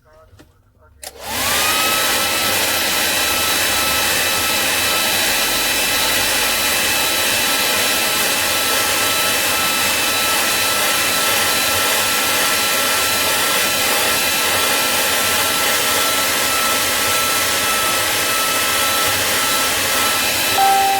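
Hot-air blower switched on about a second in, its fan rising briefly to speed and then running with a steady rush and a whine, heating the phone's back glass to soften the adhesive. A short two-tone beep sounds near the end.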